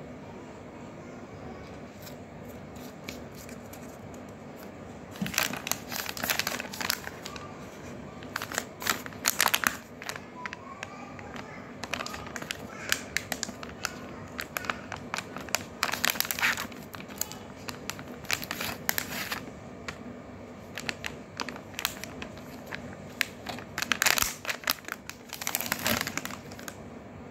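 Soft plastic packaging of Mother Sparsh baby-wipes packs crinkling and rustling as hands handle and open them, in irregular bursts that begin about five seconds in, over a steady low background hum.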